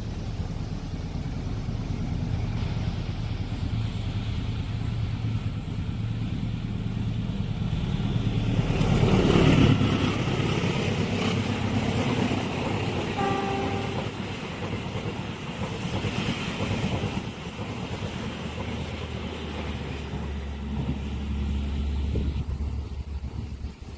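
Diesel-hauled passenger train passing a level crossing: the locomotive's engine rumble builds to its loudest about ten seconds in, followed by the steady rolling of the carriages over the rails. A brief horn toot sounds about thirteen seconds in.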